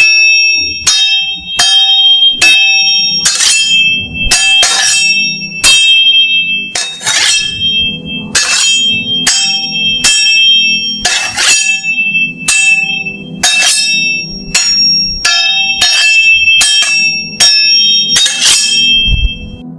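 Sword-clash sound effect: steel blades striking again and again, about one and a half clangs a second, each ringing on at the same high pitches. A low steady hum runs underneath from about seven seconds in.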